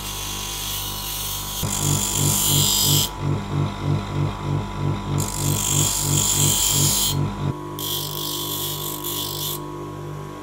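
Electric grinder running with a steady hum, as a small steel pocketknife blade is pressed to it in several short spells, each a hiss of steel being ground. A low throbbing pulse, about two a second, runs through the middle stretch.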